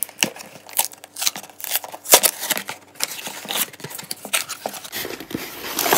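Cardboard box of a building-brick set being opened by hand: the end flap is pried and pulled open, with scattered sharp ticks and scrapes of cardboard, and a denser rustle near the end.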